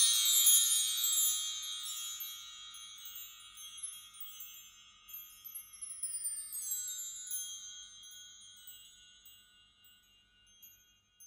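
Shimmering wind-chime-like sparkle effect of many high tinkling tones cascading downward in pitch. It is loud at first, then thins into scattered tinkles and dies away over about nine seconds.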